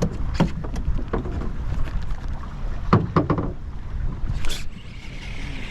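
Wind and water noise around a small fishing boat, with several sharp knocks and clicks and a short hiss near the end.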